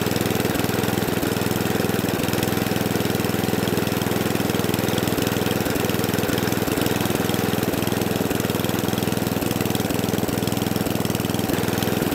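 Tecumseh single-cylinder four-stroke engine on an Atco Balmoral 14SE cylinder lawnmower running steadily, revving a little lower than it should.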